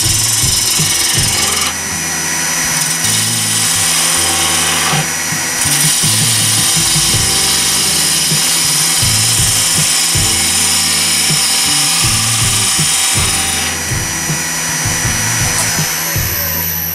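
Wood lathe spinning a small piece of ash while a spindle gouge cuts it, a steady loud hissing scrape of shavings over the motor's hum. The cutting noise eases and picks up again a few times as the tool moves.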